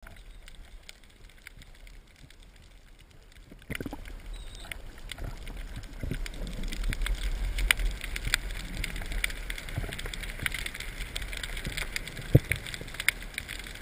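Underwater sound picked up through a camera housing mounted on a speargun: a low water rumble with many scattered small clicks and crackles. It gets louder about four seconds in, with one sharper knock near the end.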